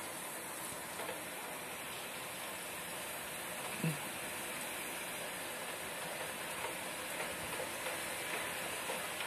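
Steady hiss of heavy rain during a thunderstorm, with scattered drops ticking close by and a brief low sound about four seconds in.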